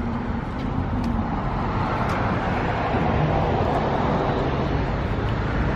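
Motor vehicle traffic: a steady engine hum with road noise that swells a little in the middle and eases off again.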